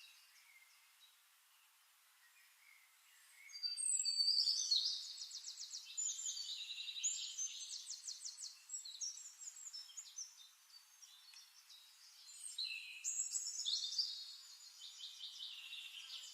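Songbirds singing: faint high chirps at first, then from about three and a half seconds in, loud high-pitched rapid trills and warbled phrases that come in repeated bouts.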